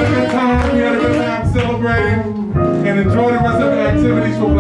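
Live jazz band playing a slow blues, a bass line moving note by note under a wavering melody line that sounds like singing.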